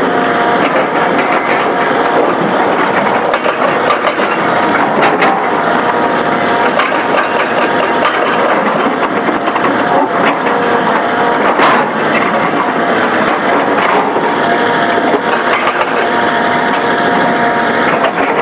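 Komatsu PC200 excavator working: its diesel engine and hydraulics run steadily under load, with a faint held tone and scattered sharp knocks and clanks.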